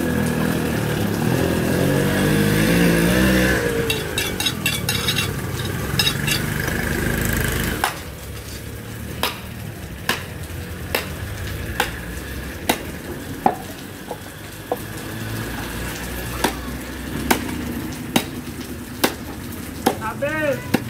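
Butcher's knife chopping through beef ribs into a wooden chopping block, sharp strikes about once a second from about eight seconds in. Before that, a loud motor rumble dips in pitch and stops abruptly.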